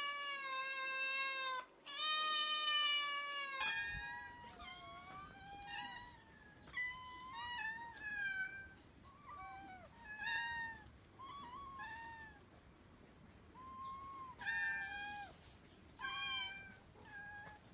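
Cats meowing: two long, drawn-out meows in the first few seconds, then a string of short meows at different pitches from several cats, some overlapping.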